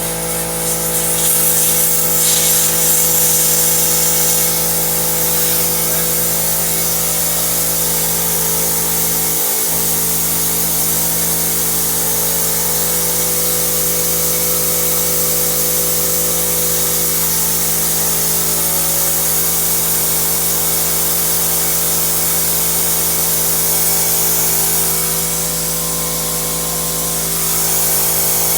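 New oil-lubricated air compressor starting up and running steadily through its break-in, with a steady hum and a hiss of air. The tank valve is open, so the pump runs without filling the tank.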